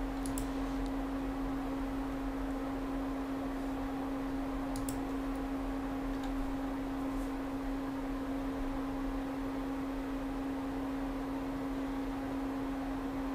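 Steady electrical hum held at one low pitch, with a few faint clicks.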